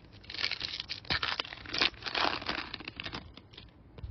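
Foil baseball card pack wrapper being torn open and crinkled by hand, a run of crackles that dies down about three seconds in.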